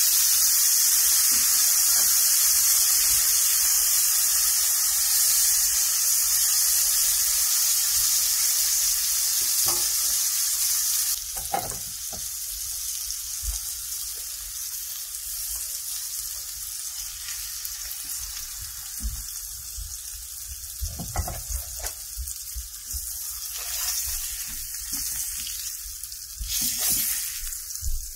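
Fish fillets sizzling as they pan-fry in olive oil and butter in a nonstick skillet, with a spatula scraping and knocking against the pan. The sizzle is loud at first and drops to a quieter sizzle about eleven seconds in.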